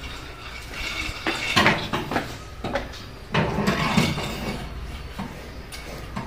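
Indian cobra hissing in several short, loud bursts, with clattering knocks from inside the washing machine.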